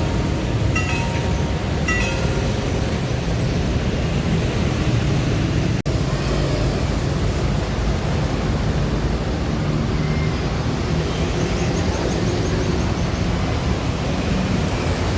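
Steady low rumble of passing vehicles at a railway level crossing, with a crossing bell ringing about once a second for the first couple of seconds. The sound drops out for an instant about six seconds in.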